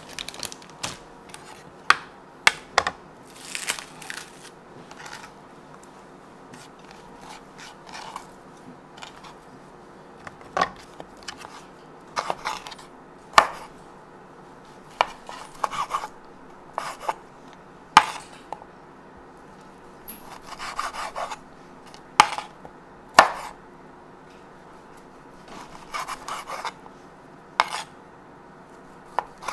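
Chef's knife slicing cured Chinese sausages on a wooden cutting board: irregular sharp knocks of the blade meeting the board, with a few short scraping sounds in between.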